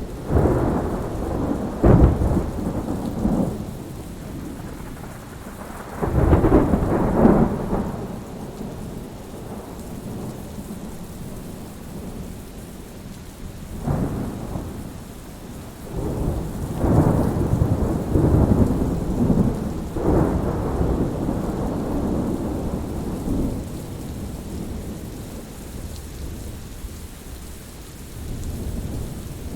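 Thunderstorm: steady rain with repeated thunder over it. There is a sharp crack about two seconds in, a rumble around six to seven seconds, another crack near fourteen seconds, and a longer rolling rumble that fades out in the second half.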